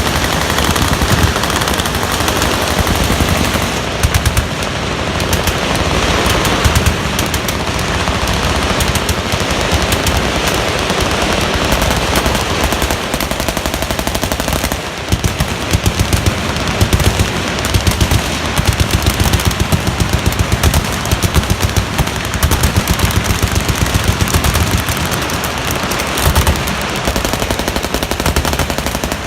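Several machine guns firing full-auto at once in long overlapping bursts, a dense continuous stream of gunfire with no break.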